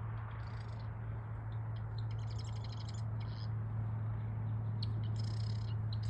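A flock of American wigeon calling: bursts of short, high whistles and chatter, thickest about two seconds in and again near the end, over a steady low hum.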